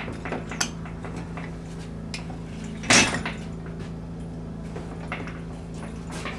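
Scattered clicks and clatter, with one loud sharp knock about three seconds in, over a steady low hum.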